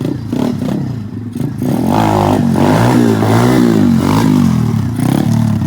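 SSR 125cc dirt bike's single-cylinder four-stroke engine running low for the first couple of seconds, then revving, its pitch rising and falling several times as the throttle is opened and closed.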